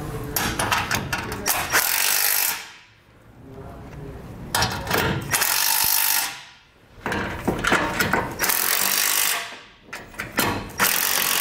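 Cordless impact driver running down hex bolts that fasten a steel nerf step to its mounting brackets. It runs in four bursts of about two seconds each, each trailing off as the motor winds down.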